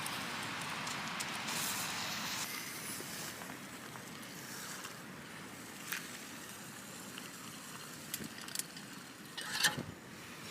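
Camp stove burner hissing steadily as it heats water, shut off about two and a half seconds in. Then come a few sharp clicks and a rustle of handling the pot and gear.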